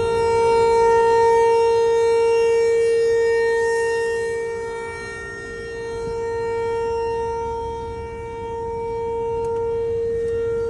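Outdoor tornado warning siren sounding a steady tone during a test, its loudness swelling and fading every three or four seconds.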